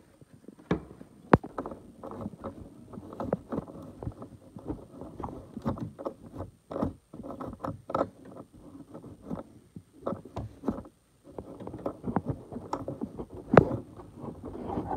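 Scouring pad scrubbing the metal battery cable terminal clamps, an irregular rubbing and scratching with scattered sharp clicks and knocks, cleaning them so they make good contact.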